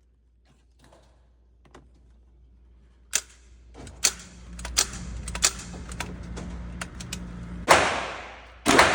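Gunshots in an indoor shooting range: faint scattered clicks at first, then a rapid run of sharp cracks, then two much louder shots with long echoing tails near the end.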